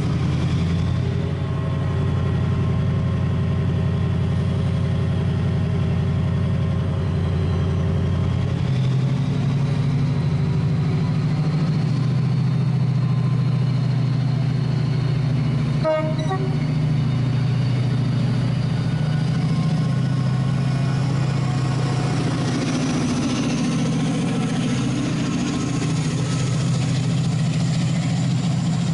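Class 68 diesel-electric locomotive's Caterpillar V16 engine running with a steady low drone; its note changes about a third of the way in. A sharp click comes near the middle, and in the last few seconds a slowly rising whine sounds as the train pulls away.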